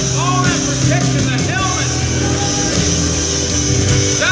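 Church worship music: a band plays sustained chords while a voice sings in arching, gliding phrases.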